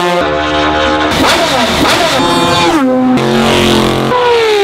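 Racing car engines at high revs, several track clips cut together: the engine note jumps in pitch at each cut or gear change and falls away twice as cars brake and pass.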